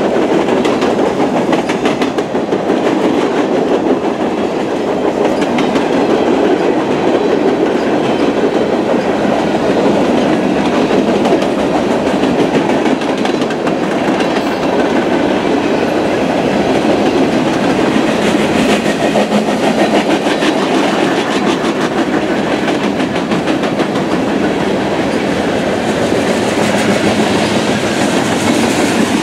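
Freight cars of a Union Pacific mixed freight (boxcars, then covered hoppers) rolling past close by: a steady rumble of steel wheels on rail, with faint rhythmic clicking as the wheels pass over the track.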